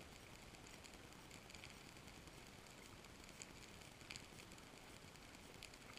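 Underwater near silence: a faint low hiss with scattered sharp, high clicks about once a second.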